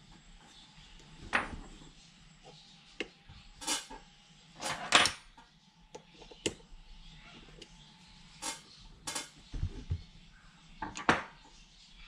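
Metal parts and hand tools clinking and knocking during bench assembly of an individual throttle body kit: about a dozen sharp, irregular clicks and clanks, the loudest about five seconds in, with a dull thud near ten seconds.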